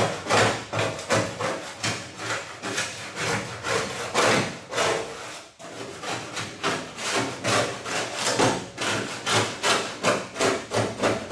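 Rapid back-and-forth hand scrubbing strokes, about three a second, working at a coating softened with paint thinner.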